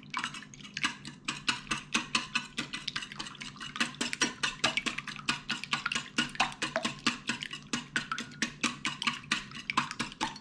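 Wire whisk beating eggs in a ceramic bowl: rapid, even clinking of the wires against the bowl, about four to five strokes a second.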